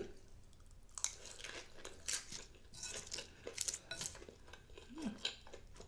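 Close-miked chewing of a crispy fried chicken piece topped with melted cheese and corn: a string of irregular crunches and wet mouth clicks.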